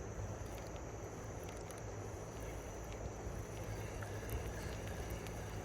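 Steady, fairly quiet wash of a shallow river running, with a low rumble underneath and a few faint ticks.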